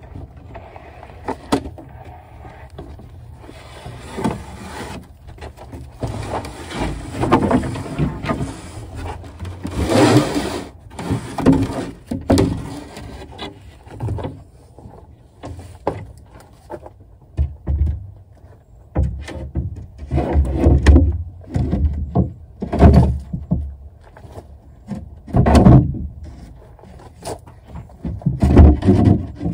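A plywood sheathing panel being shoved and fitted against a cripple wall's wooden studs: irregular scraping and rubbing of wood on wood, broken by knocks and heavy thuds as the sheet bumps into place, the thuds coming more often in the second half.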